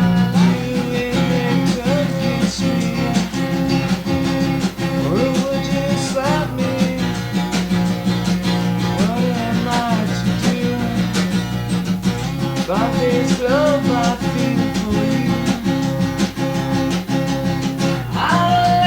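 Lo-fi home recording of acoustic guitar music, sustained strummed chords throughout, with short gliding notes that bend up and down every few seconds.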